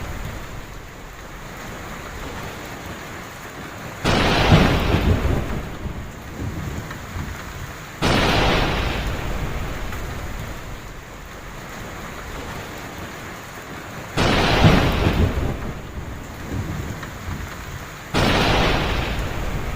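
Heavy rain falling steadily during a thunderstorm, with four sudden claps of thunder that each rumble away over a few seconds.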